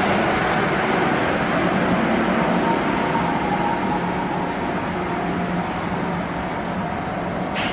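Osaka New Tram 200 series rubber-tyred automated guideway train pulling away from the platform, its running noise slowly fading as it goes, with a faint steady whine midway, leaving a steady hum. A short sharp noise near the very end.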